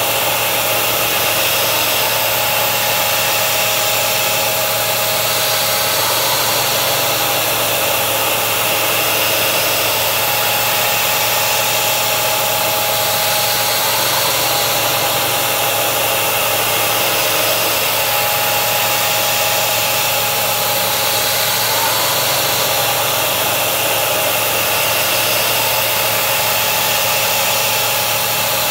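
Mist coolant sprayer hissing steadily while a carbide end mill cuts under CNC control. A mid-pitched tone from the cut comes and goes in stretches of a few seconds as the tool works through its passes.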